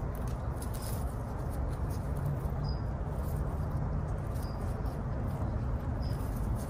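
Steady low background rumble with short, high chirps every second or two.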